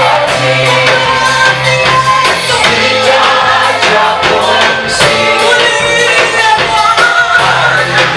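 Gospel praise-and-worship music: a group of voices singing together over a steady bass line and percussion with a regular beat.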